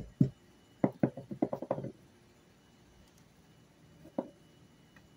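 A run of quick, dull knocks and taps on a wooden tabletop, about ten in a second, then a single knock about four seconds in.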